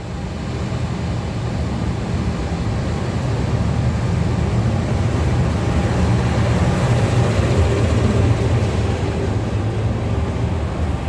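Train running past, a steady low rumble with a rushing hiss that builds over the first few seconds and then holds.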